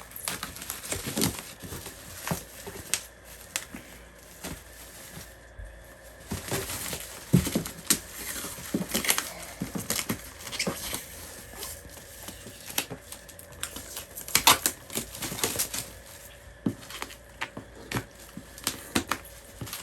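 Cardboard box and plastic packaging being worked open by hand, with irregular crinkling and rustling and many sharp clicks and snaps.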